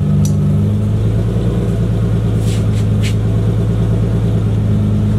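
Nissan 350Z's 3.5-litre V6 running at a steady idle through a freshly made straight-pipe exhaust with no mufflers, a loud, even rumble.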